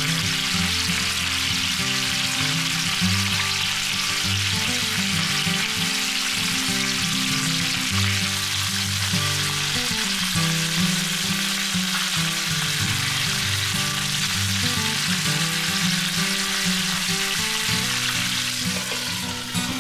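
Chicken drumsticks sizzling steadily in a hot nonstick frying pan as metal tongs turn them, with soft background music underneath. A brief knock near the end as a glass lid goes onto the pan.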